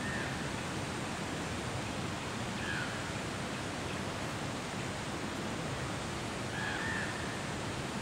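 Steady outdoor rushing noise with no rhythm or change, and three faint short high chirps.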